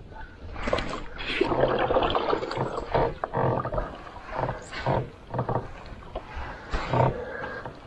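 Canoe paddle strokes in lake water: the wooden blade splashes in and pulls through about every two seconds, with water swishing along the hull between strokes.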